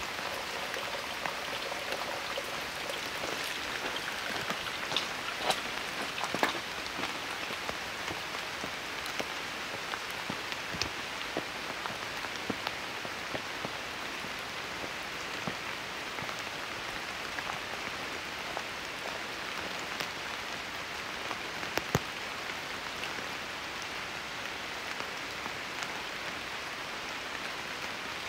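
Steady rain falling, with scattered louder drops striking close by, most clearly around five to six seconds in and again near twenty-two seconds.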